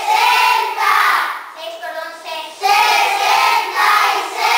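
A class of schoolchildren chanting the multiplication tables together in unison, in a sing-song chorus of short phrases.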